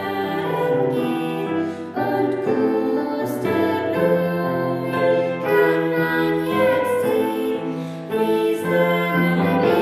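A woman and a girl singing a song together, accompanied on an upright piano.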